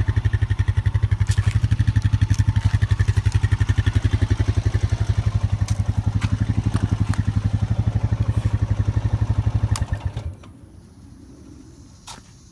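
Honda Rancher 420 ATV's single-cylinder engine idling with an even, rapid low pulse, then shut off about ten seconds in. A few light clicks are heard over it.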